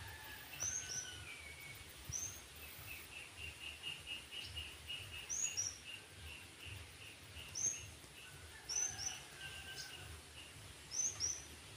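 Wild birds calling: sharp, high, slurred call notes, often in quick pairs, repeated every second or two, over a run of quick, even chirps through the middle.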